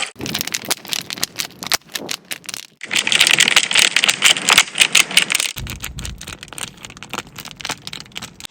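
Rapid, irregular clicking and rattling, broken by a loud stretch of hissing noise about three seconds in, then more clicking over a low rumble.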